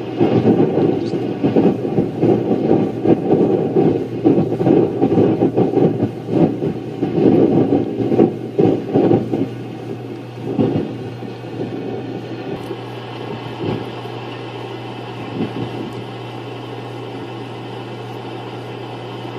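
Hurricane wind gusting over the camcorder microphone, heavy irregular buffeting for about the first ten seconds, then easing to a steadier rush. A steady low hum runs underneath.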